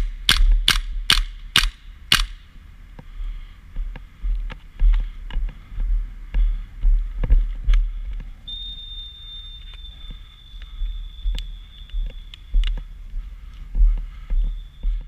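Airsoft gun firing six quick single shots, about two and a half a second, as sharp clicks. After that come scattered fainter clicks and handling noise over a low rumble of wind on the microphone.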